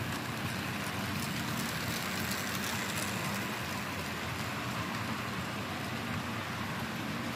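Rivarossi HO-scale model steam locomotive, a streamlined Tennessean, and its passenger cars running past: a steady whir of the model's motor and the rolling of its wheels on the track.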